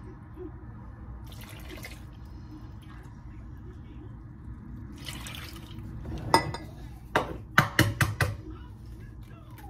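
Milk poured from a plastic gallon jug into a measuring cup and into a glass mixing bowl of cornmeal, with soft splashing and trickling. Near the end comes a quick run of about six sharp knocks as the measuring cup is handled and set down.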